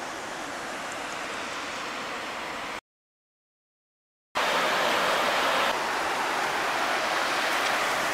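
Steady rushing of white water over the river's rocky falls, loud and even. It is preceded by a quieter steady noise and a dead silence of about a second and a half, and the rushing starts abruptly after the silence.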